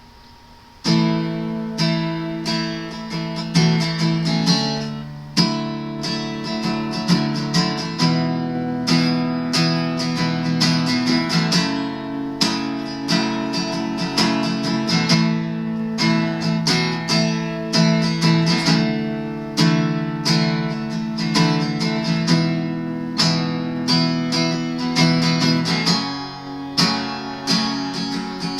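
Acoustic guitar playing a strummed chord introduction, starting about a second in.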